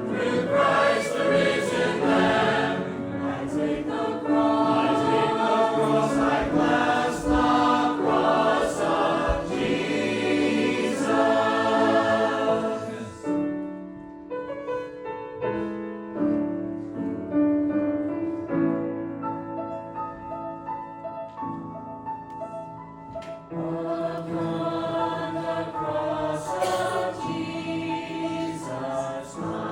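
Church choir singing a hymn. It turns softer and thinner for about ten seconds in the middle, then swells fuller again near the end.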